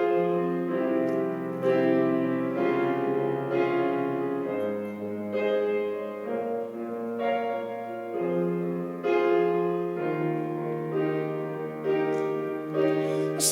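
Piano playing an instrumental interlude: sustained chords struck about once a second over a bass line that moves every few seconds.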